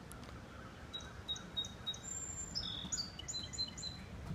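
A songbird singing a quick series of short, high chirps and whistles, starting about a second in, over a steady low background noise.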